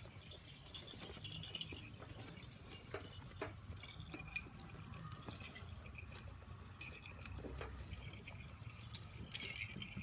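Goats feeding on a pile of fresh-cut Napier grass: faint rustling of the leafy stalks and chewing, with scattered crisp snaps and clicks.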